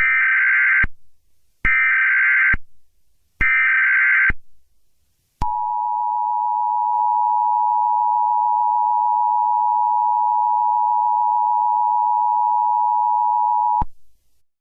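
Emergency Alert System tones: three short bursts of SAME digital header data, each under a second. Then the two-tone attention signal sounds as one steady tone for about eight seconds and cuts off sharply.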